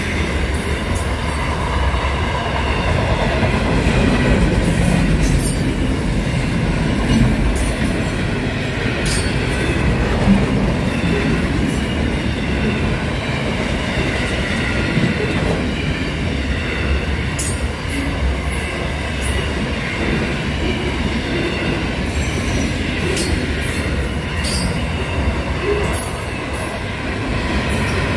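Freight train's container wagons rolling past at speed: a steady rumble of steel wheels on rail, with a few sharp clicks.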